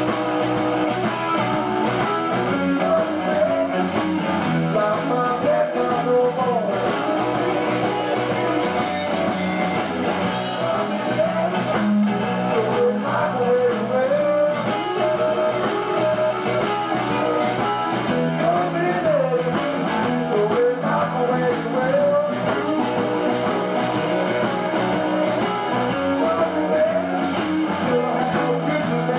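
Live blues band playing: electric guitars with bending lead lines over bass, harmonica and drums keeping a steady cymbal beat.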